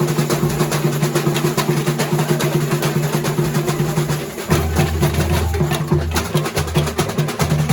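Samba school bateria playing batucada: a dense, fast drum rhythm with rattling snare-type drums. About four seconds in the playing briefly dips, then deep bass drum strokes come in as a strong pulsing beat.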